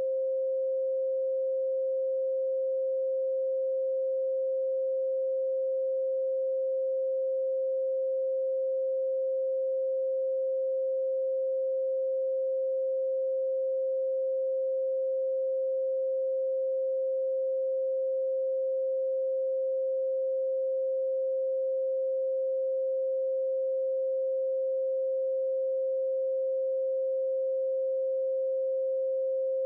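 A pure 528 Hz sine-wave tone, held steady at one pitch and level without any change.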